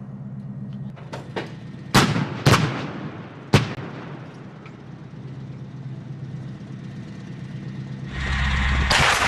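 PzH 2000 155 mm self-propelled howitzer footage: a steady low hum, sharp bangs about two, two and a half and three and a half seconds in, then a loud sustained rush of noise rising near the end.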